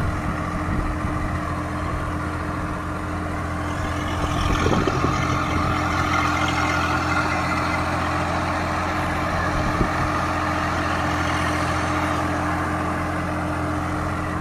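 Swaraj tractor's diesel engine running steadily as the tractor drives through a sandy furrow, growing louder about four seconds in.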